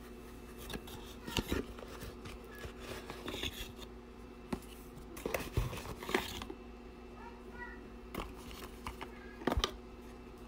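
A small cardboard box being opened and handled, its contents tipped out: scattered rustles, scrapes and light knocks, loudest about a second and a half in, around six seconds, and near the end, over a steady low hum.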